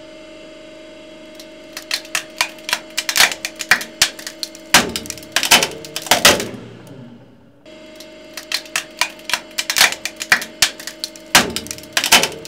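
A hydraulic press hums steadily while a bolted wooden joint under its ram cracks and splits. There is a rapid run of sharp snaps and cracks, with a few much louder splits. It breaks off briefly past the middle, then a second run of cracking follows.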